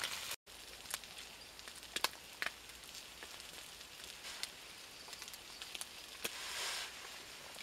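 Open wood campfire crackling, with scattered sharp pops over a soft steady hiss.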